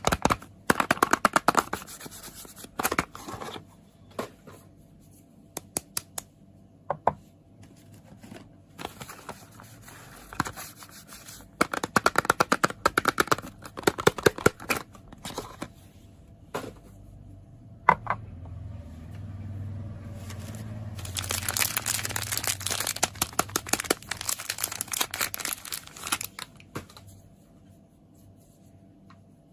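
Soap packaging being handled by hand: several bursts of quick, crisp fingernail taps, then, a little past the middle, a long stretch of wrapper crinkling and tearing as a soap is unwrapped.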